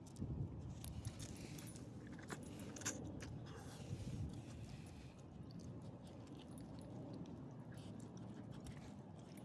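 Light metallic jingling with scattered small clicks, over a steady low rumble.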